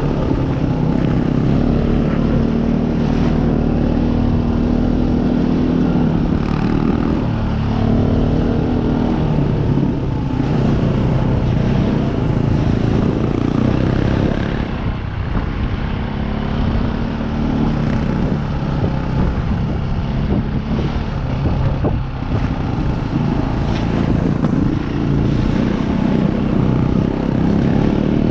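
Trail motorcycle engine running under way, its pitch holding steady for a while and then rising and falling as the throttle changes.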